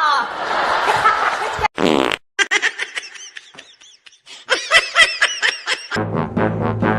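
People laughing in short repeated bursts, starting just after a brief low buzzing, fart-like sound about two seconds in.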